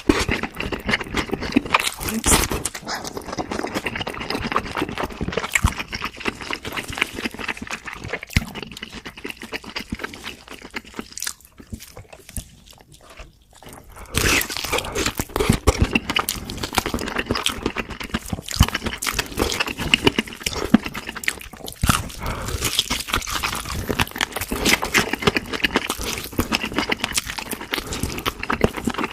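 Close-miked chewing and crunching of fried food, with dense crackly bites and mouth sounds. There is a quieter pause about halfway through.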